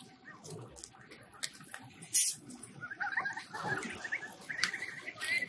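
Footsteps in flip-flops crunching and rustling over litter and dry debris, with scattered light clicks and one louder crack about two seconds in. From about halfway, short high chirping sounds come in.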